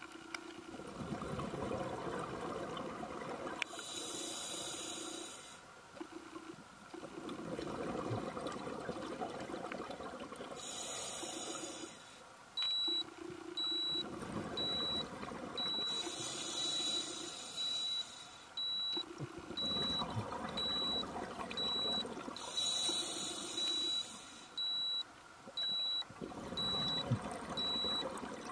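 Scuba regulator breathing: a hiss on each inhale alternating with a burst of exhaled bubbles every few seconds. From about halfway a dive computer beeps in a steady string of short high beeps on one pitch, its 100-foot depth alarm.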